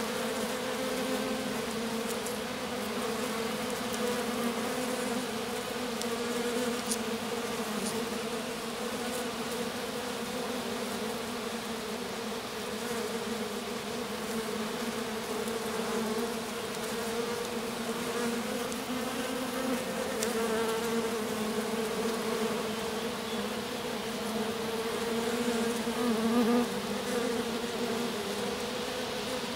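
Honeybees of a small swarm clustered in the grass around their queen, buzzing close by in a steady hum on two pitches, one low and one an octave above.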